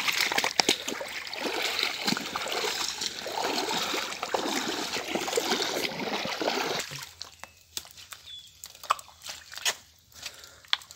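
Rubber boots wading through shallow floodwater, sloshing and splashing with each step. About seven seconds in the splashing stops and gives way to sparse, quieter footsteps snapping twigs on the forest floor.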